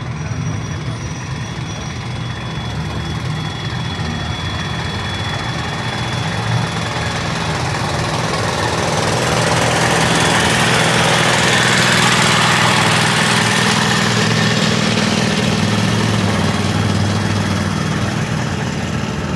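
Vehicle engine running steadily with a low hum. A rushing noise swells to a peak a little past the middle and then fades.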